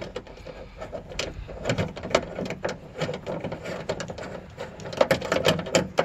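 Hand ratchet with a 10 mm socket clicking in irregular runs of quick clicks as it backs out a bolt holding the trunk latch. The clicking grows denser near the end.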